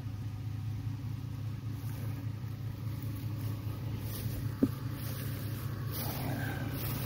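A tractor engine running steadily, a low even hum, with a single short click a little past halfway. Wind buffets the microphone near the end.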